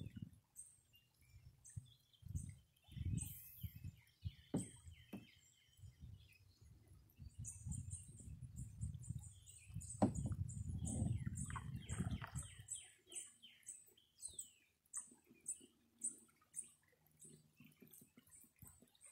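Birds chirping and calling in riverside woods, with a high, quickly repeated chirp. Low rumbles and a few knocks run underneath, with a sharp knock about ten seconds in.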